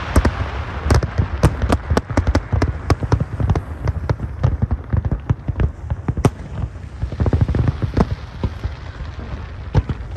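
Large fireworks display: a dense, irregular run of bangs and cracks from many aerial shells bursting in quick succession over a steady low rumble.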